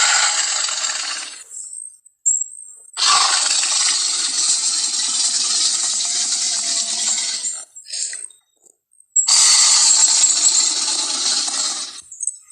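Giant film-monster roar sound effects: a roar ending about a second and a half in, a long one of about four and a half seconds, and another of about three seconds near the end, each harsh and rasping, with short pauses between them.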